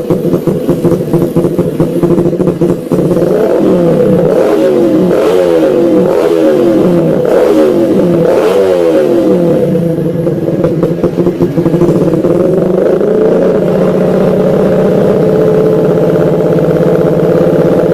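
Modified Yamaha Jupiter Z underbone motorcycle's bored-up four-stroke single on a racing exhaust, running at idle and then blipped several times, the pitch rising and falling repeatedly before settling back to a steady idle.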